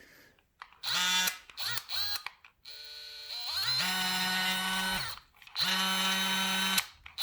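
Electric motor of a cordless DeWalt 20V power tool run in five short trigger pulls, each spinning up to a steady whine and winding down again. On the fourth pull it runs briefly at a slower speed before being squeezed up to full speed.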